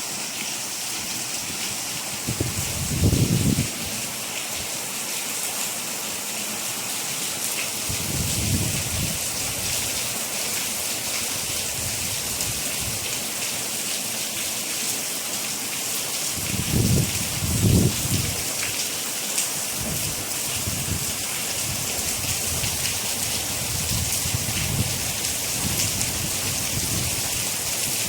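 Steady heavy rain hissing as it falls on surfaces, with a few short low rumbles: one about three seconds in, a weaker one near eight seconds, and two loud ones around seventeen and eighteen seconds.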